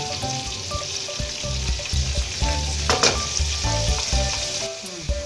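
Chicken and yogurt sizzling in hot ghee in a cooking pot, a steady frying hiss, with a single sharp knock about three seconds in.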